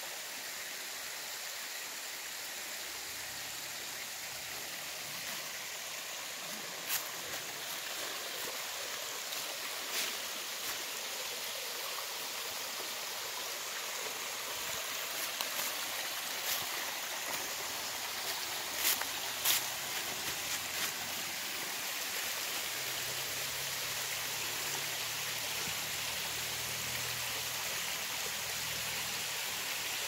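Shallow woodland creek running and trickling over rocks, a steady rushing hiss, with a few short sharp clicks.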